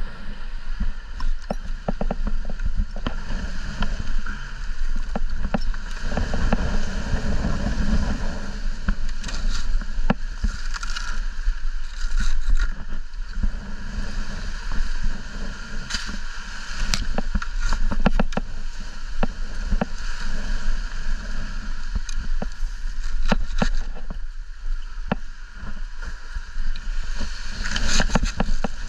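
Wind buffeting the microphone with a steady low rumble, with scattered clicks and rustles throughout.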